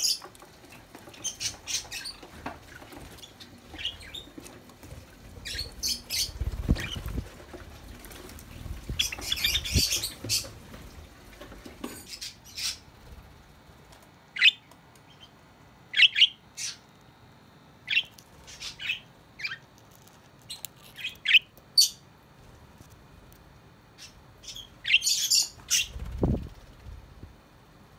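Several Java sparrows giving short, scattered chirps and squeaky calls, with bunches of quick calls twice. Two soft low thumps are also heard.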